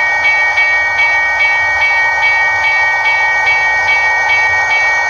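Level-crossing warning bell ringing in a steady repeated pattern, about two and a half strikes a second, each strike ringing on into the next.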